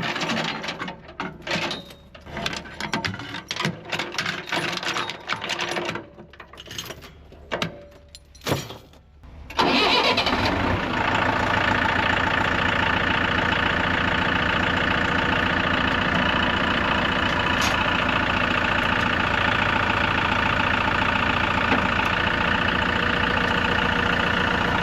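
Scattered clanks and knocks, then about ten seconds in an engine starts and runs steadily.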